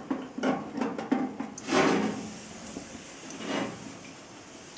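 Water squirted from a spray bottle onto the smouldering sawdust fire at the bottom of a smoking cabinet: two hissing bursts, the louder about 2 s in and a smaller one about 3.5 s in, damping flames. A few knocks from handling the cabinet come first.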